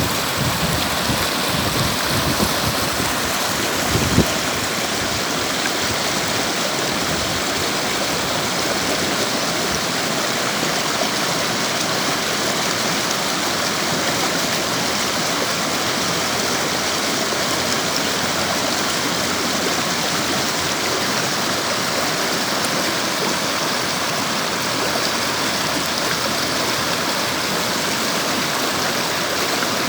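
A river flowing over rocks, a steady rushing and babbling of water. A few soft low knocks in the first few seconds, the loudest about four seconds in.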